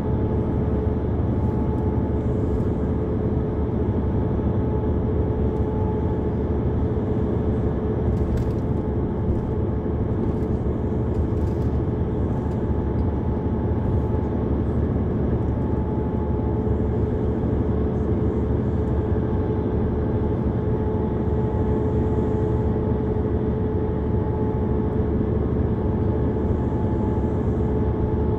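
Inside a city bus on the move: steady low engine rumble and road noise with a constant humming drone, and faint clicks and rattles now and then.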